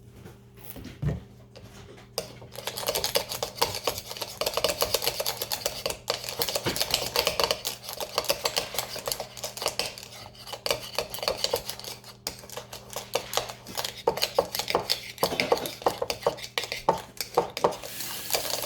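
A spoon stirring and scraping slime in a container, a quick, uneven run of clicks and scrapes that starts about two seconds in, as activator is worked into the slime.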